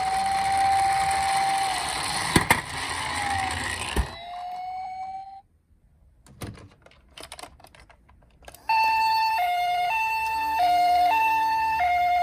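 Electronic sirens from toy emergency vehicles. First a held siren tone with two sharp clicks; it cuts off about five seconds in. After a few seconds of small clicks, a toy ambulance's two-tone hi-lo siren starts near the end, alternating evenly between a higher and a lower note.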